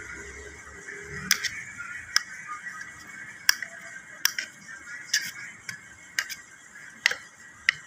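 Kitchen knife clicking against a ceramic plate while cutting soft roasted eggplant, about nine sharp clicks at uneven intervals.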